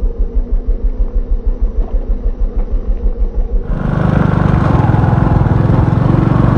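Motorcycle engine chugging at low speed with an even pulse of about five or six beats a second, then picking up speed about four seconds in, louder and steadier.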